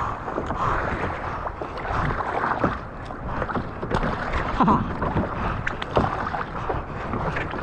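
Sea water sloshing and splashing around a kayak, with wind on the microphone and scattered small splashes and knocks while a crab ring is hauled up by hand.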